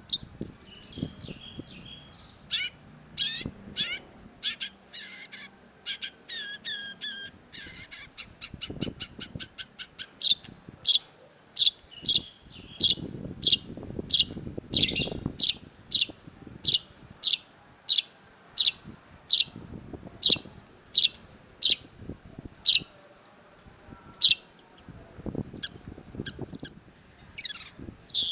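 Long-tailed shrike singing. A varied run of chirps gives way about eight seconds in to a quick rapid series of notes. Then comes a long string of loud, evenly spaced sharp notes, about one and a half a second, which thins out near the end.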